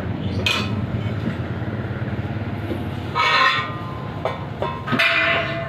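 Hand tractor's engine running steadily with a low chugging rumble, driving a grass-cutting blade mounted under the tractor. Brief higher-pitched sounds cut in three times over it.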